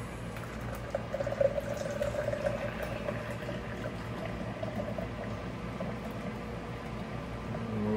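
Stout being drawn from a nitro beer tap into a pint glass: a steady pouring hiss that fades out after about five seconds.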